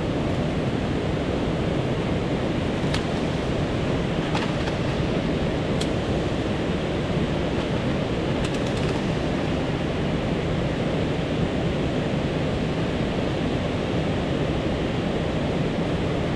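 Steady rush of flowing river water, even and unbroken, with a few faint light clicks.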